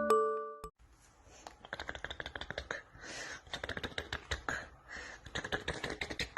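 Rapid, irregular light clicks and scratches, with soft breathy swells now and then. The tail of a chime tone dies away at the very start.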